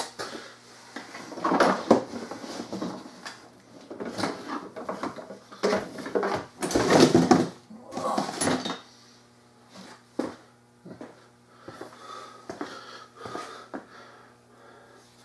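Pressure washer parts being rummaged through in a cardboard box: rustling cardboard and clattering plastic as the spray gun and wand are pulled out, loudest about two seconds in and again around seven seconds in, then a few lighter knocks.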